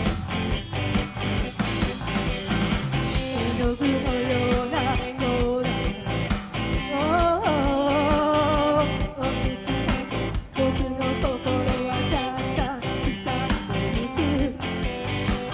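Rock band playing live: drums, bass and electric guitar, with a pitched lead line that bends and wavers around the middle.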